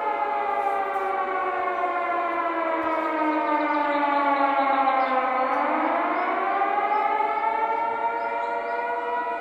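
Civil defense siren sounding. Its pitch slides slowly down for about five seconds, then winds back up and holds steady.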